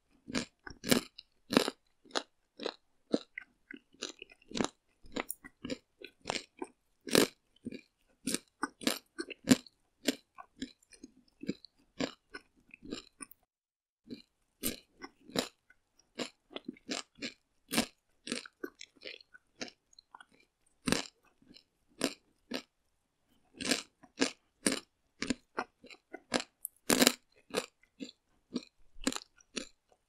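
A person chewing hard, crunchy food: a long, irregular run of sharp crunches, about two a second, with a brief pause about halfway through.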